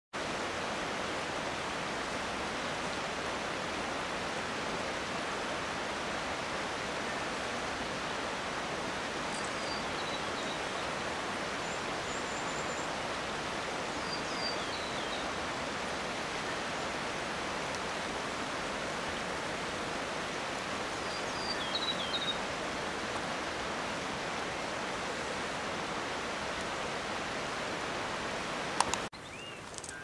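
Steady rushing of water from the glacial river running over its gravel bed, with faint high bird chirps a few times. A sharp click near the end, after which the rushing drops away.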